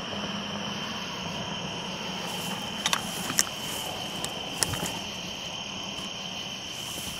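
Crickets calling in a steady, unbroken high tone, with a few short sharp clicks or rustles about three and four and a half seconds in.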